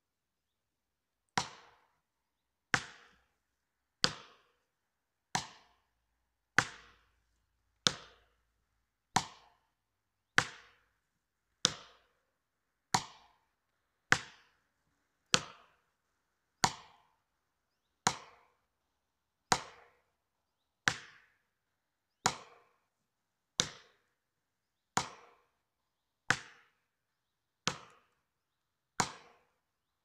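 An axe's poll striking felling wedges in the cut of a standing tree, a steady series of sharp blows about every 1.3 seconds, each with a short ring. The wedges are lifting the back-leaning tree to tip it toward the felling side.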